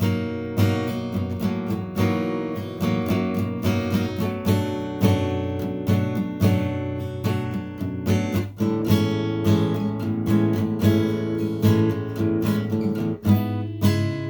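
Yamaha F335 steel-string dreadnought acoustic guitar playing chords, strummed and picked, with the notes ringing on between strokes.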